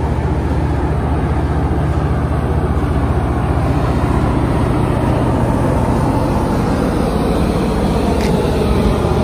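Large diesel engine running steadily beside the train: an even, loud low drone with a steady pitch.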